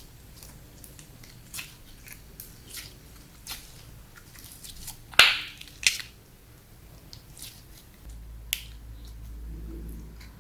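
Slime being squeezed and worked by hand, giving irregular wet clicks and pops, the loudest about five seconds in.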